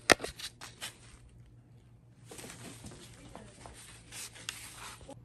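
A few sharp clicks, the first the loudest, followed a second or so later by a stretch of scratchy rustling with scattered clicks.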